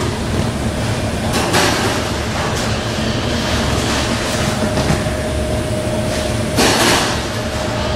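Belt conveyors and feeders of a multihead weighing and packing line running: a steady mechanical rumble with a constant tone through it, and a few short rattles, the loudest just before seven seconds in.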